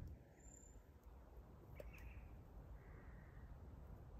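Near silence: a faint low rumble with a couple of faint ticks and a few faint, distant calls.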